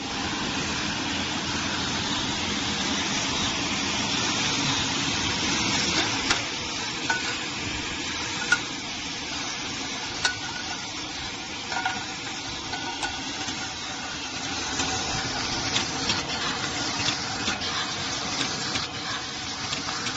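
Paste labelling machine running with its can conveyor: a steady mechanical hiss, with scattered sharp clicks from about six seconds in.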